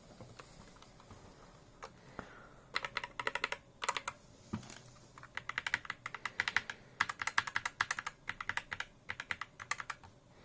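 Typing test on a mechanical keyboard with lubed and filmed MX-style switches. After a quiet start, rapid keystroke clicks begin about three seconds in and come in quick bursts with short pauses.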